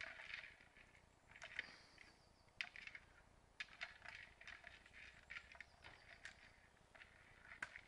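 Faint, irregular crackling and rustling of dry twigs and leaf litter as a brown bear moves about in the undergrowth.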